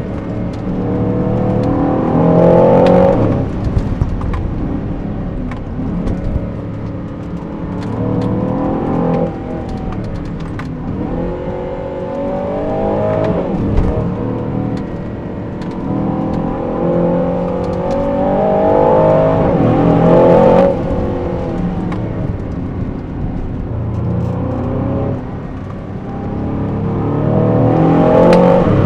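Aston Martin DBX707's 4.0-litre twin-turbo V8 pulling hard through the gears. The engine note climbs and drops back at each upshift, about five times over the stretch, with a sharp drop about twenty seconds in when the throttle is lifted.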